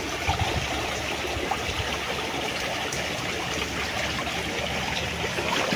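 Shallow stream water trickling and lapping: a steady watery noise with small scattered ticks.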